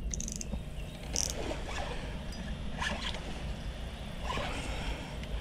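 Spinning reel on a hooked fish: the drag gives line in short buzzes, about every second and a half, as the fish pulls, over a steady low rumble.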